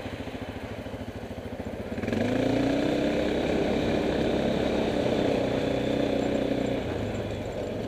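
Kymco MXU 500 quad's single-cylinder four-stroke engine under way at low revs. About two seconds in, the throttle opens and the engine pulls harder with a slightly rising pitch, holding steady for several seconds before easing off near the end.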